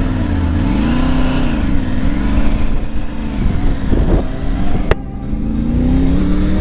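Triumph Tiger's three-cylinder engine pulling away from a stop and gathering speed, its revs rising and falling several times. A single sharp click comes about five seconds in, then the revs climb steadily.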